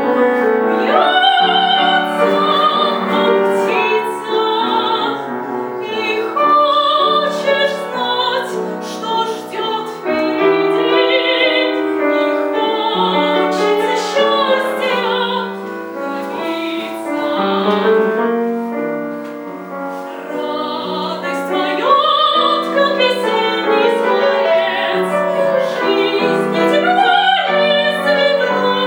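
A woman singing in a trained, operatic style with strong vibrato, accompanied by piano.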